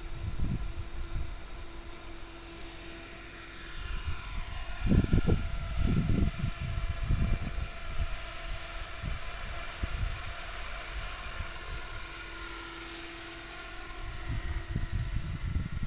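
Radio-controlled aerobatic model helicopter lifting off and climbing, its rotor and drive making a steady multi-toned whine. Irregular low rumbles of wind on the microphone are the loudest thing, about five to seven seconds in.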